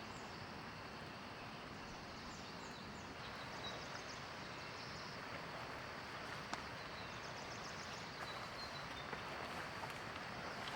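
Steady hiss of light rain in a forest, with several short runs of quick, high chirps from a small calling animal and a single sharp click about six and a half seconds in.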